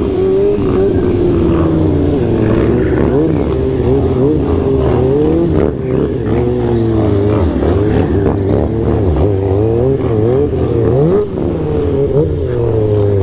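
Stunt motorcycle engine revving up and down, the pitch rising and falling with the throttle, while the bike is held in a wheelie.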